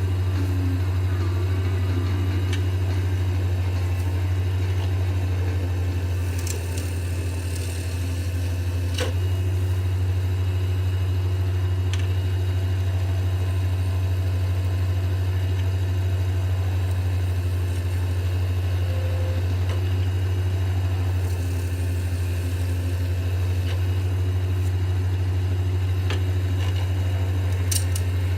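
Lathe motor running steadily with a low hum while spinning an acrylic pen blank, with a few light clicks and brief hissing passages along the way.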